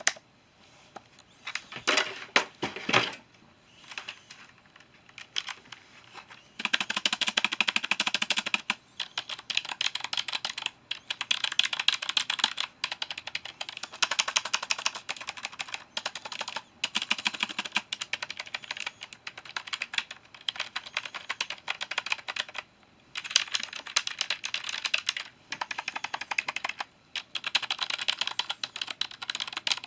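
Computer keyboard being typed on: a few scattered key presses at first, then fast continuous typing in long runs of clicks with short pauses between them.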